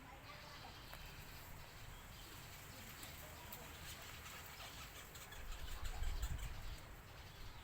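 Faint bird chirps over a steady outdoor background hiss. A louder low rumble comes about five and a half seconds in and lasts roughly a second.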